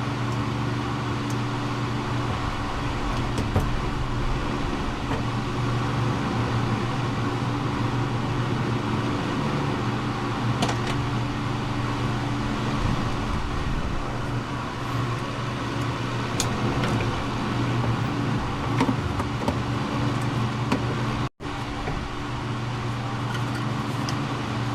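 A steady mechanical hum runs throughout, with scattered light clicks and taps from hands working on plastic and metal parts.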